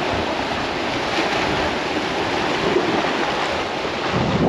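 Sea waves washing against shore rocks, a steady rushing noise, with wind buffeting the microphone.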